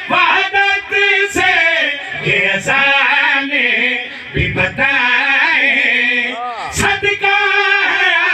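Men chanting a devotional Urdu qasida, the lead reciter singing into a microphone with long wavering held notes and a rising and falling glide, another voice joining in.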